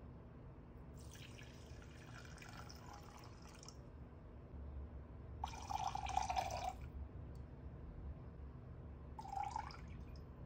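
Liquids poured into a glass measuring jug in three separate pours: a few seconds of herb infusion, then floral water, the loudest, and near the end a brief trickle of bergamot oil from a small metal cup.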